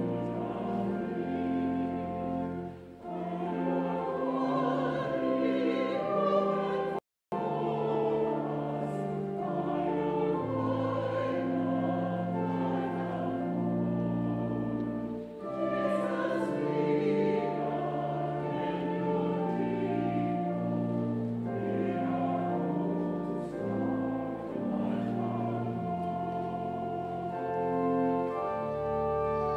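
A choir singing with held organ notes beneath it, as in a church hymn or anthem. The sound cuts out completely for a moment about seven seconds in.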